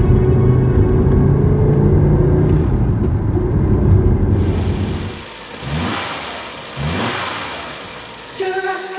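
Car engine running and revving, with two quick rises in pitch about halfway through as it accelerates.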